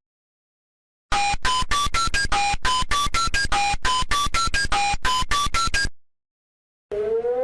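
Emergency-alert-style electronic alarm: short, sharp beeps rising in steps through about five pitches, the run repeating roughly once a second for about five seconds. Near the end a siren starts and rises in pitch.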